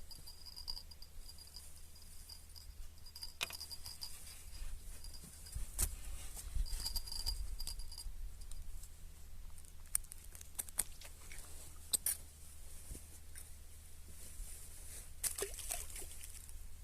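Scattered clicks, rustles and knocks of close handling, with an insect's thin high trill on and off during the first half.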